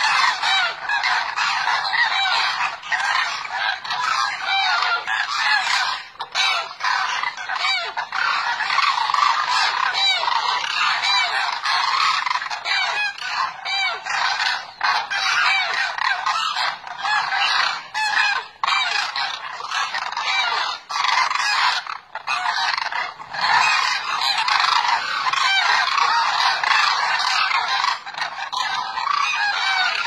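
A large flock of demoiselle cranes calling all together: a dense, unbroken chorus of overlapping calls, with a few brief lulls.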